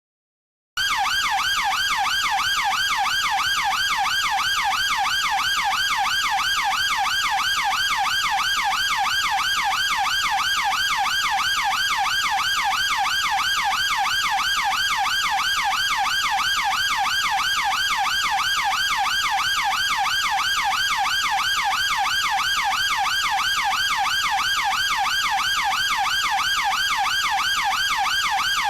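Chinese police car siren in a fast, steady yelp, its pitch swinging up and down several times a second without a break. It starts suddenly about a second in, after a moment of silence.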